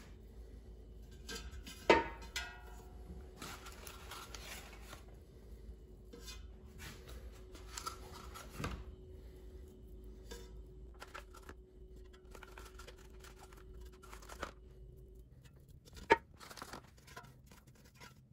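Hands handling raw canned cinnamon rolls: paper can wrapping rustling and crinkling as the rolls are pulled free, with light knocks as they are set into a metal non-stick air fryer basket. A sharp knock with a short ring about two seconds in, and another sharp knock near the end.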